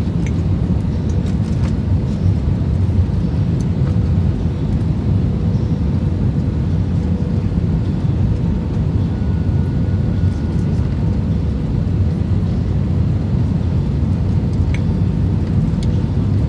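Steady low rumble of jet engines and rushing air inside the cabin of an Airbus A320 on final approach, descending low toward the runway.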